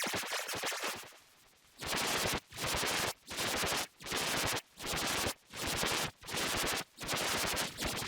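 Distorted, heavily edited 'Sparta remix' logo sound effect: the audio is chopped into rapid machine-gun-like stutters. After a dip about a second in, it comes in about seven short bursts of roughly half a second each, with brief gaps between.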